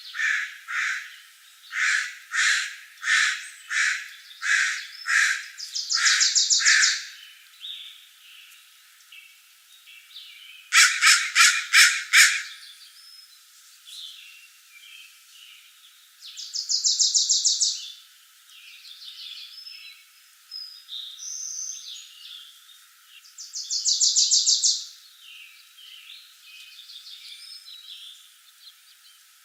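Wild birds calling and singing: a series of about eight harsh notes, a little over one a second, over the first seven seconds; a loud rapid burst of notes about eleven seconds in; and fast trills near six, seventeen and twenty-four seconds. The track has no low end.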